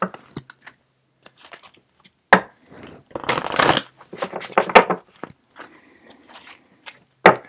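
A deck of tarot cards being shuffled and handled, in irregular flurries of riffling and slapping, with a sharp tap about two seconds in and a louder flurry around three to four seconds.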